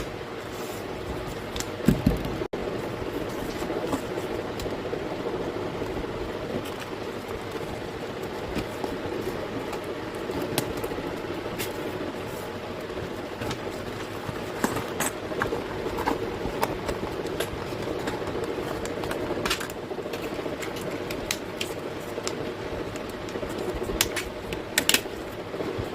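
Steady low hum of room or fan noise, with scattered small clicks and rustles of packaging and art supplies being handled and unboxed.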